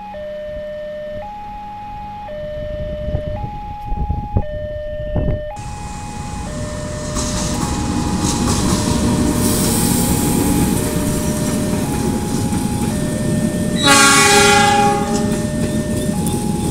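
Railway level-crossing warning siren sounding a steady two-tone alternation, low and high notes of about a second each. About a third of the way through, a louder rushing noise comes in, and near the end a train horn sounds one blast of about a second as the train approaches.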